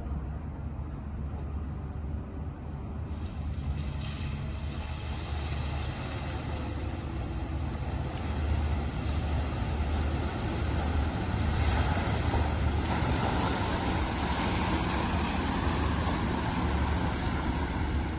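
Water splashing and rushing as a small electric delivery van wades through a pool, growing louder as it comes close, over a steady low rumble.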